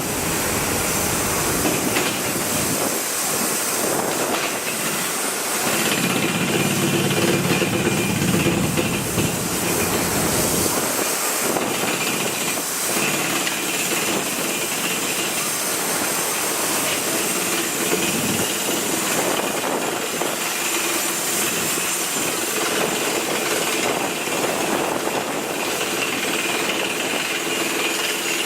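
A steady, loud hiss of noise, with a lower rumble that rises about six seconds in and fades after about four seconds.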